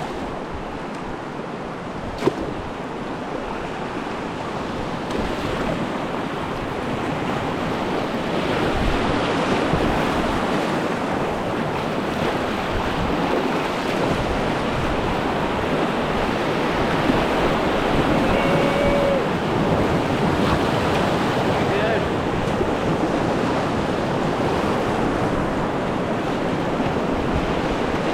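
Whitewater of a river rapid rushing steadily, growing louder about eight seconds in as the kayak moves into the rapid, with one sharp knock about two seconds in.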